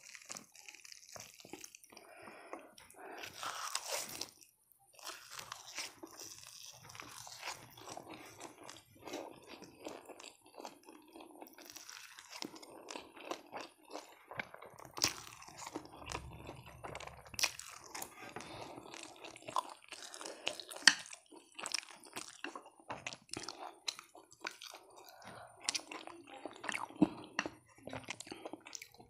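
Close-miked eating sounds: a person biting and chewing crisp roasted seaweed and spicy instant noodles, with many sharp crunches and crackles. The biggest burst of crunching comes about four seconds in.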